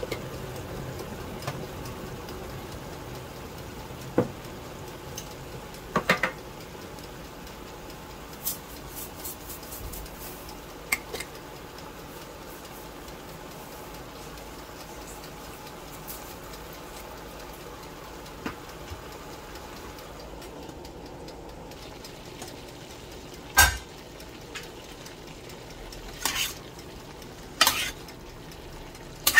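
A metal utensil knocking against a stainless steel cooking pot of cut vegetables: a few scattered knocks and clicks over a steady low hiss, with stirring and louder knocks near the end.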